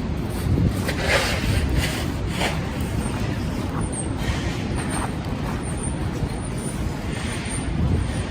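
City street traffic: a steady low rumble of vehicles, with short hissing bursts about a second and two and a half seconds in.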